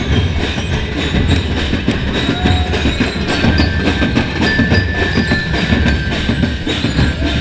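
Loud street drumming, a fast, steady beat from a festival drum band, heard from inside a packed crowd.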